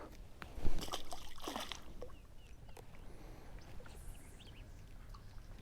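A sudden thump about a second in, followed by water sloshing and light knocks around a fishing boat, with faint bird chirps later.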